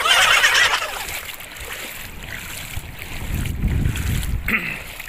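Water splashing and sloshing around someone wading through shallow seawater, loudest in the first second. Later, strong wind buffets the microphone with a low rumble.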